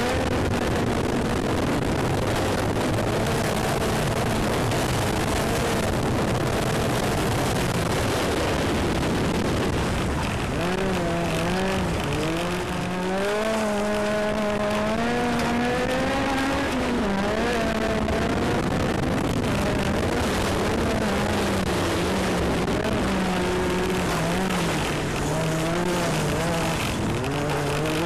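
Honda Civic Type R rally car's engine revving hard, its pitch rising and falling again and again with throttle and gear changes, over a constant rush of tyres and gravel on a loose stage.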